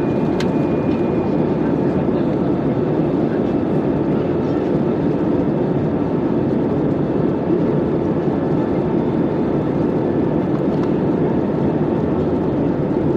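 Steady cabin noise of an Airbus A319 in flight: engine and airflow noise, heard from a window seat over the wing.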